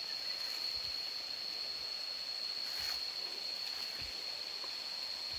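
Insects in the field giving a steady, shrill single-pitched drone, with a few faint rustles and small knocks from someone working the ground.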